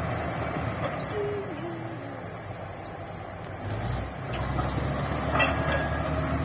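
Shantui bulldozer's diesel engine running, easing off for a couple of seconds and then picking up again about four seconds in. A sharp metallic clank comes about five seconds in.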